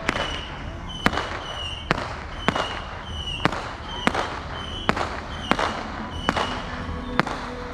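Fireworks going off in a steady series of sharp bangs, about one every 0.7 seconds.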